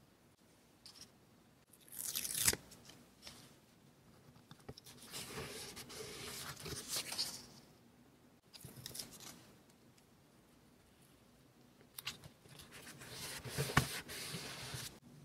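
Paper stickers being handled with tweezers, peeled off their backing and pressed onto a kraft-paper journal page: several separate bursts of crackly paper rustling, with a sharp tick near the end.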